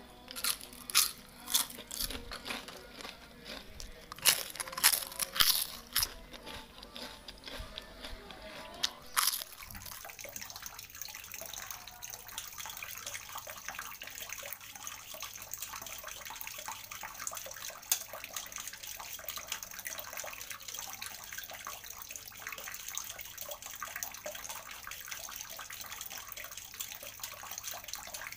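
Crisp fried potato chips crunching and crackling as a hand scoops them up and lets them fall, a run of sharp crunches over the first nine seconds or so. After that a steady hiss with faint scraping from a hand peeler taking the skin off raw potatoes.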